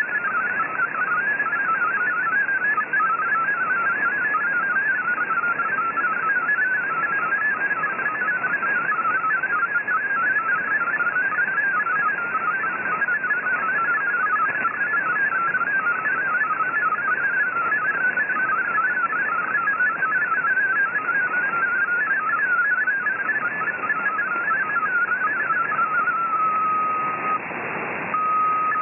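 MFSK32 digital text signal received over shortwave: a fast, warbling stream of hopping tones over steady band hiss. Near the end it settles into a single steady tone, broken once briefly, then the warbling resumes.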